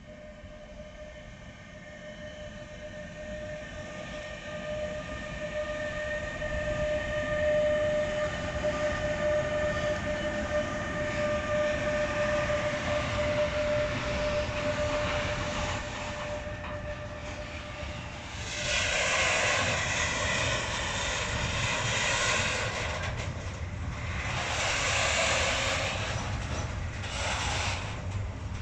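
Container freight train passing. The locomotive gives a steady whine that grows louder and then fades, and the wagons follow with loud surges of rolling wheel noise in the second half.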